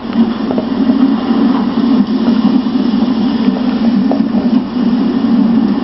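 Yorkshire Terrier puppy growling in play, a low continuous rumble, while chewing a rubber Kong toy.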